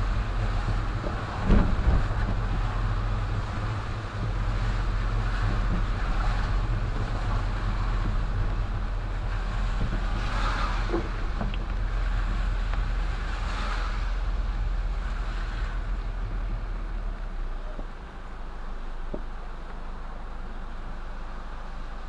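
Car driving on a wet street in the rain, heard from inside the cabin: a steady low rumble of road and engine noise with tyre hiss, a sharp bump about a second and a half in, and two brief swishes later on. About 18 seconds in the rumble drops as the car comes to a stop at a light.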